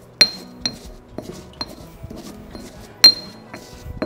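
Pestle working in a mortar, muddling citrus zest and spices into a paste: a handful of sharp, ringing clinks of pestle against the bowl, the loudest about three seconds in, with quieter grinding between.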